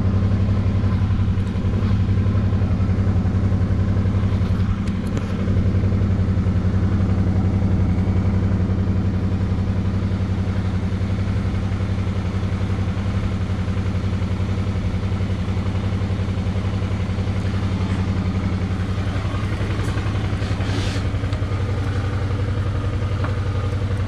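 2009 Suzuki DL650 V-Strom's V-twin engine running steadily, with no revving.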